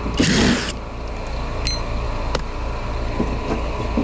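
Steady low hum of the neighbouring running air-conditioner condensing units, with a short loud scrape near the start and a few sharp metallic clicks as the technician works at the dead unit.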